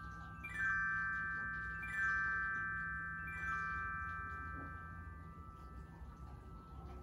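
Small handheld glockenspiel, its metal bars set on a wooden box, struck with a mallet in three quick descending runs about a second and a half apart. Each run's notes ring on and overlap, and a softer single note sounds near the end.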